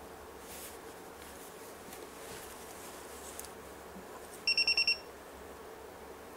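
Digital multimeter's beeper giving a rapid train of about seven short, high beeps in half a second, about four and a half seconds in, over faint room noise.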